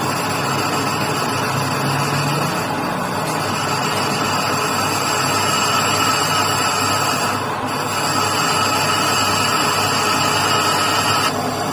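Steady, loud metalworking machine noise with a constant high whine over it, dipping briefly twice.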